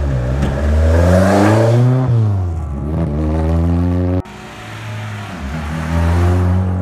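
A car engine revving hard under acceleration, its pitch climbing, dipping at a gear change about two seconds in, then climbing again. The sound breaks off abruptly about four seconds in and picks up again at lower revs.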